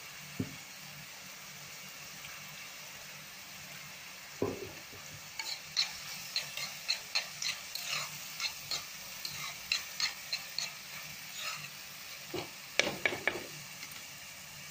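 Spatula stirring onions frying in oil in a pan: a quick run of scrapes and taps against the pan, about two a second, with a few louder knocks near the end, over a faint steady sizzle.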